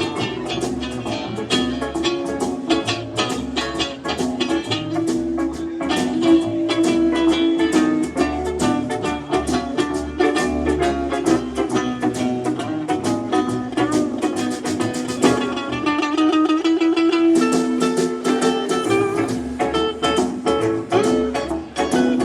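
Live acoustic string band playing an instrumental Christmas tune: steady strummed guitars under a plucked melody. About two-thirds of the way through the bass drops out for a couple of seconds before the full band comes back in.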